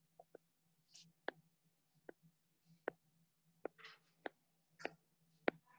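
Faint, sharp taps of a stylus tip on a tablet's glass screen while drawing, about ten of them at irregular intervals.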